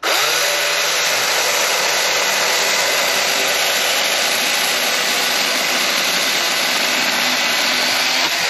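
Husqvarna Power Axe 350i battery-powered chainsaw starting abruptly at full speed and cutting steadily through a wild cherry hardwood log for about eight seconds. Its motor begins to spin down right at the end.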